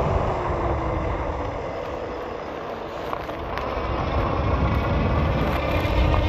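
Wind buffeting the microphone on a moving fat-tire e-bike, easing a little about two seconds in and then building again.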